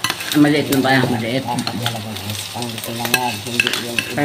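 Wooden spatula stirring and scraping fried rice on a hot griddle, the rice sizzling, with scattered clicks of the spatula against the pan. A person's voice runs underneath.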